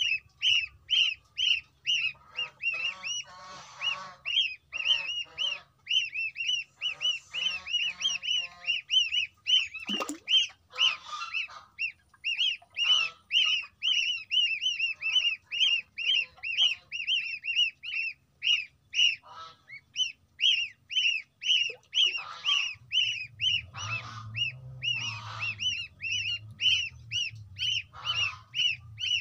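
A brood of goose goslings peeping without pause, in a rapid string of high, down-slurred peeps about three a second, with softer lower chirps from other chicks mixed in. These are the goslings' calls to their broodmates and their mother.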